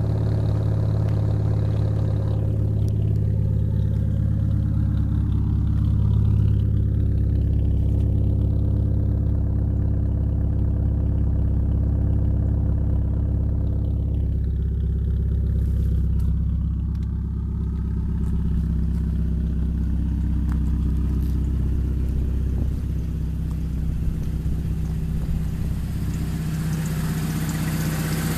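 A 1997 Neon's 2.0-litre DOHC 16-valve four-cylinder idling steadily, heard through its exhaust at the tailpipe. Near the end more of the engine's own mechanical clatter comes in, from the open engine bay.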